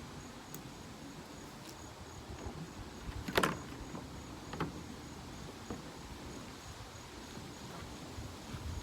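Knocks from a kayak and scupper cart being handled: one sharp knock about three and a half seconds in and a smaller one about a second later, over a faint, evenly repeating high chirp.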